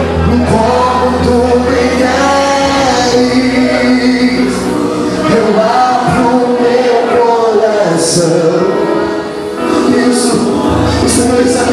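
Man singing a gospel hymn into a microphone over instrumental accompaniment, with a short break in the singing a little after nine seconds in.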